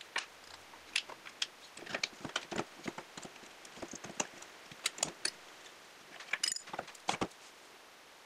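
Irregular light clicks and wooden knocks as brass electrode handles are set into the compartments of a small wooden case and its hinged wooden lids are folded shut.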